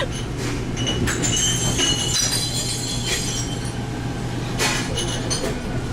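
Squealing and creaking with clinks of glass over a steady low hum, typical of a ship's interior fittings and loose items straining as the vessel rolls in a storm.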